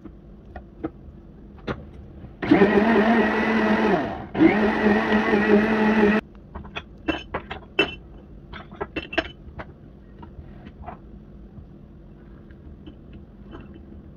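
A kitchen blender's motor runs in two loud bursts of about two seconds each, with a brief break between them, its pitch rising quickly as it starts. Afterwards come a run of light clicks and a few ringing metallic clinks.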